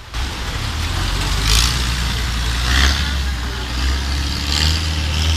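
An engine running steadily with a low rumble, under a rushing noise that surges three times.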